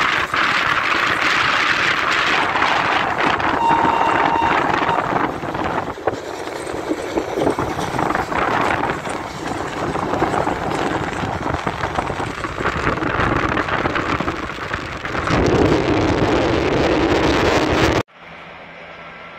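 FS 740 steam locomotive working a train past under heavy steam: its exhaust and running noise are mixed with strong wind on the microphone. About a second before the end the sound drops suddenly to a much quieter background.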